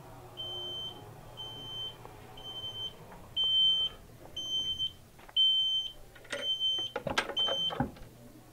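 Heat press timer beeping about once a second, eight short high beeps, signalling that the pressing time is up. A few knocks and clatter near the end as the press is handled.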